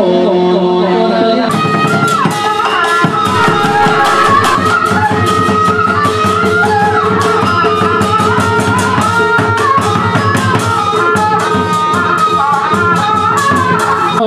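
Music: a melody with bending notes over a quick, steady beat of sharp percussion strikes, about four or five a second, which comes in about a second and a half in.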